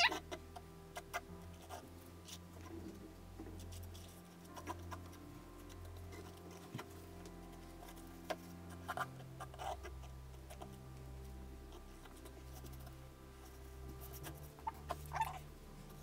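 Faint scraping and light tapping as a plastic stir stick spreads white acrylic pouring paint over a stretched canvas, with gloved hands handling the canvas. There are a few louder taps about nine seconds in and again about fifteen seconds in.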